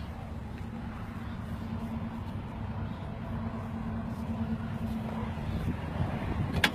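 Small engine running steadily with a low rumble, and one sharp click near the end.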